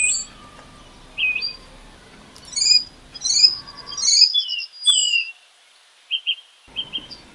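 Birds chirping: a run of short, high chirps and quick whistled sweeps, densest in the middle.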